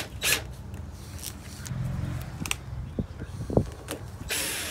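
Scattered light clicks and knocks of a hand tool with a T30 bit, tightening the screws on a high pressure fuel pump's housing, with a short hiss near the end.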